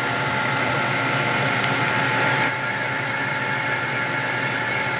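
Metal-turning lathe running at steady speed, its motor and gearing giving an even hum with several constant tones.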